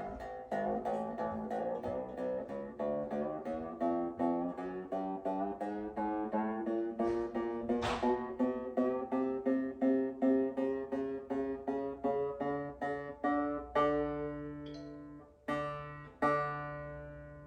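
A banjo string plucked over and over, about two times a second, while it is tuned up to pitch, the note creeping higher as the tuning peg is turned. Near the end come a few slower plucks left to ring.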